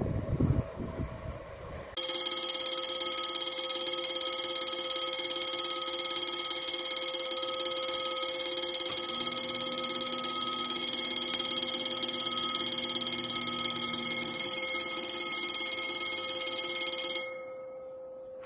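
The rumble of a passing train fades out, then a level-crossing warning bell starts abruptly about two seconds in, ringing rapidly and steadily, and stops suddenly about a second before the end.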